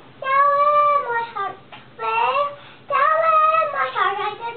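A young girl singing in a high voice, in three phrases of long held notes that slide up and down.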